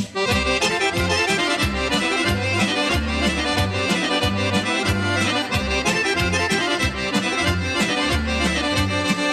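Chromatic button accordion playing an instrumental solo break of fast note runs in a folk song, with a bass line pulsing underneath.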